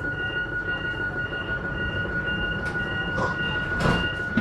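CAF Civia electric multiple unit with Siemens traction converters: a steady high electrical whine over low train rumble, with a higher tone pulsing a little over twice a second. Two knocks come near the end.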